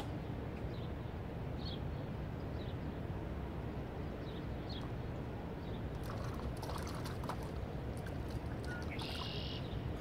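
A small bird giving short high chirps roughly once a second over a steady low rumble, with a brief buzzy call near the end and a scatter of faint clicks.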